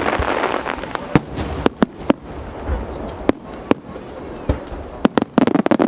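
Aerial fireworks bursting. A dense crackling wash fades away, with sharp bangs scattered throughout and a quick cluster of bangs near the end.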